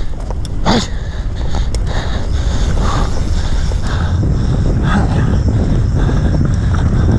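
Mountain bike riding fast down a dirt trail: wind buffeting the microphone over tyre noise, with the bike rattling and knocking on rough ground and a louder knock near the start.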